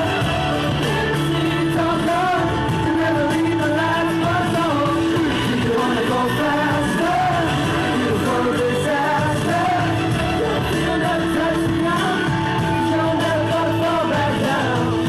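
Upbeat pop song with singing over a full backing track, loud and continuous.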